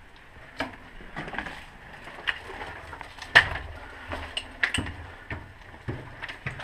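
Footsteps scuffing and crunching over a debris-strewn floor, heard as an irregular run of knocks and clicks, with one sharper knock a little after the middle.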